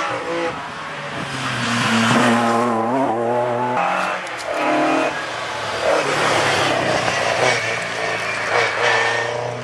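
Rally car engines at full throttle: a car's engine revs up and down as it passes, then, after an abrupt change about four seconds in, another rally car accelerates through with its engine pitch rising and falling through gear changes.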